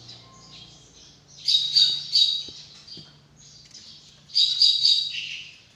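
Drongo (srigunting) singing sharp, high notes: two loud bursts of three quick repeated notes, about a second and a half in and again near the end, with softer chattering notes between.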